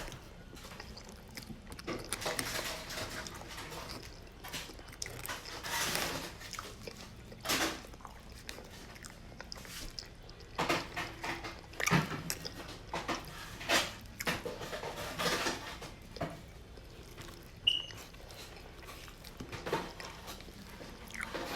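A person chewing and biting food close to the microphone, in irregular bursts. There is a brief high squeak near the end.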